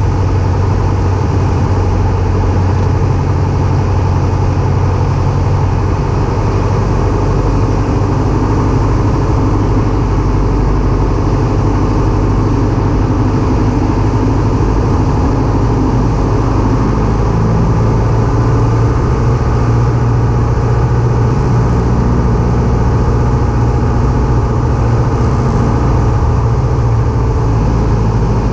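Light aircraft piston engine heard from inside the cockpit, a loud steady drone whose low tone shifts slightly about halfway through.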